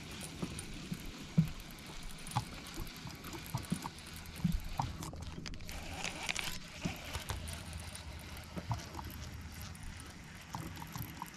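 Small clicks and knocks from handling a baitcasting reel, with a short hiss about six seconds in as a lure is cast out, over a steady low hum.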